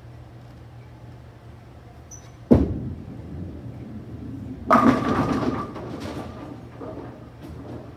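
Ten-pin bowling ball landing on the wooden lane with a sharp thud about two and a half seconds in, rolling with a low rumble, then crashing into the pins about two seconds later with a loud clatter that rings and dies away.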